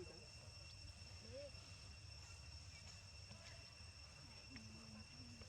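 Faint steady insect chirring, a constant high-pitched drone at two pitches, over a low rumble of background noise.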